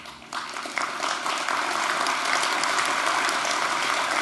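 Audience applauding: many hands clapping together, building up over the first second and then holding steady.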